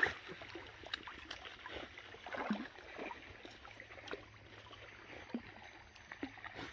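Faint rustling of tall grass and light sloshing of steps on waterlogged ground, with scattered small ticks and a couple of soft bumps.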